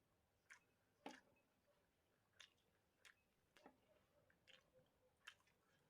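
Faint chewing of food: about eight short, soft crunchy sounds at irregular intervals.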